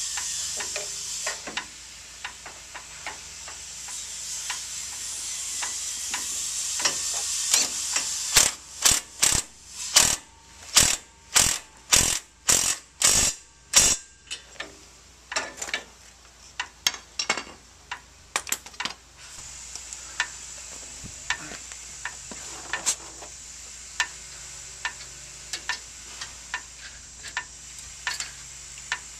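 Ryobi 18V 1/2-inch cordless impact wrench driving a truck's strut fasteners: a steady run, then about a dozen loud short hammering bursts, roughly two a second. After that come scattered clicks of a hand ratchet working a suspension bolt.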